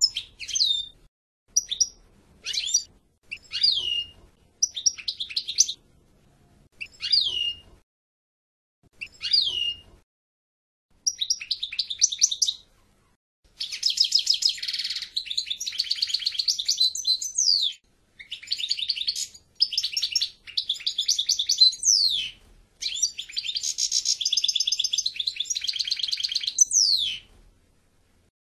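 European goldfinch singing. It opens with short separate notes that slide downward, about one a second, then from about eleven seconds in gives long, fast twittering phrases of rapid trills, some ending in a falling slur, with short pauses between them.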